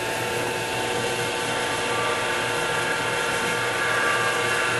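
X2 mini milling machine running steadily with a drill bit in the spindle, boring a hole through a bracket.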